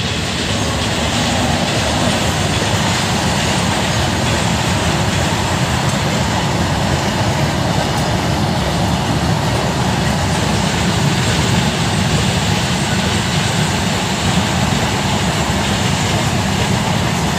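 Goods train of flat wagons rolling past, a steady, unbroken rumble of wheels on the rails.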